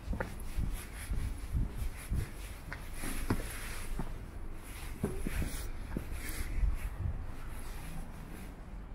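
Footsteps of someone walking: soft irregular thuds about twice a second, over a steady low rumble.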